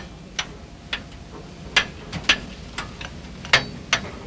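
Irregular sharp metallic taps and clicks, two or three a second, some louder than others, over a low steady rumble, during pre-departure preparation of a C62 steam locomotive in its engine shed.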